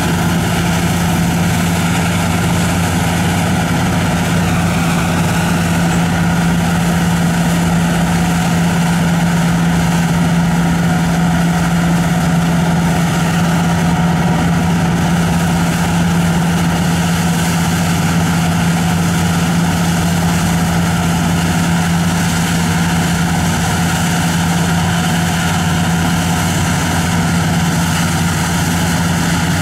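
Don-1500 combine harvester at work, its diesel engine running steadily under load with a deep even hum, over the rush of the threshing gear and straw being thrown out behind.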